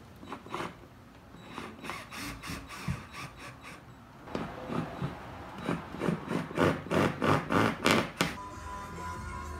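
Stubby ratcheting screwdriver driving the screws that hold a tweeter in a car's dash, clicking with each turn, the strokes louder and coming about three a second in the second half. Background music comes in near the end.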